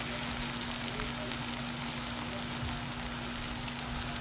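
Sliced onions, green chilies and spice paste frying in oil in a pan: a steady crackling sizzle, with a steady low hum underneath.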